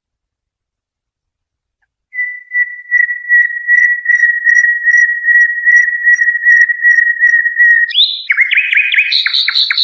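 Songbird tutor song of the 'Haddad' style, used to teach young birds to sing. After about two seconds of silence comes one long, steady whistled note with a slight warble, held for about six seconds, then a quick run of rising and falling chirps near the end.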